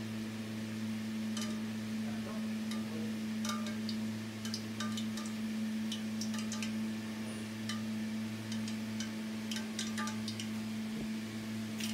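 Steady low hum with scattered faint ticks and crackles from a frying pan of cooking oil heating on an electric stove, the oil not yet hot.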